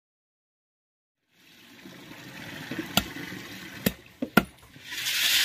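Silence for about the first second and a half, then a large knife chopping into a dressed whole chicken on a wooden log block: three sharp chops about half a second to a second apart. Near the end a loud rushing hiss starts and cuts off suddenly.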